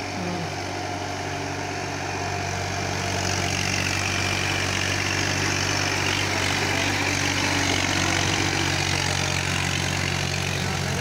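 Massey Ferguson 1035 DI tractor's three-cylinder diesel engine running steadily under load as its cage wheels churn through flooded paddy mud. It grows louder about three seconds in as the tractor draws close, then eases a little near the end.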